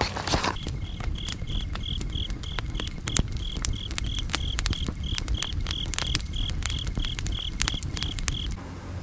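Wood fire crackling with sharp pops, with a cricket chirping steadily about three times a second over it; both cut off suddenly near the end.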